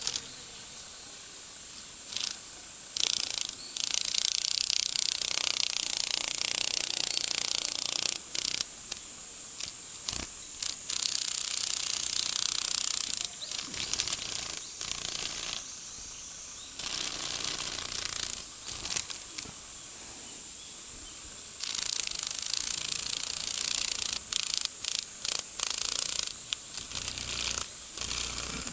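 A live cicada held in a skink's jaws, buzzing in harsh, high hissing bursts that start and stop abruptly, some brief and some several seconds long: the distress call of a cicada being eaten.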